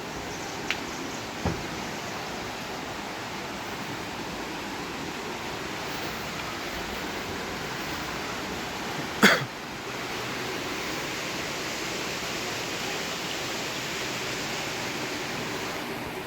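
Steady rushing of a waterfall, an even noise throughout, with one sharp knock about nine seconds in and two faint clicks near the start.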